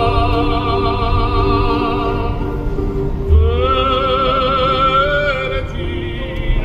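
Music: a slow melody of long held notes in an operatic style, with vibrato on the later notes. About halfway through, a new note slides up and is held.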